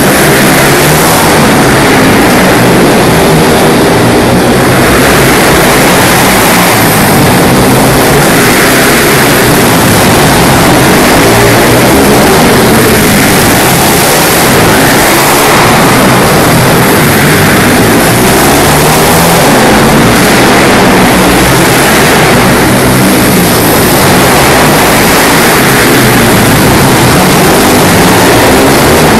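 Several pit bike engines revving hard and constantly, rising and falling in pitch as the bikes accelerate and brake around the track, loud throughout with no let-up.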